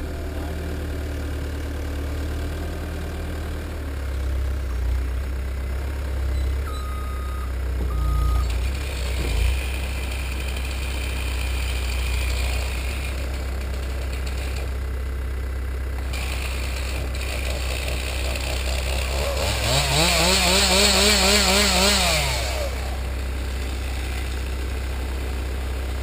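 Caterpillar 277B compact track loader's diesel engine running steadily, with two short beeps about seven seconds in. About three-quarters of the way through, a chainsaw revs up to full speed, holds for a couple of seconds and drops back.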